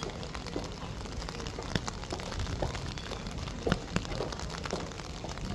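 High-heeled footsteps clicking on a wet street, roughly two steps a second, over a steady hiss of rain.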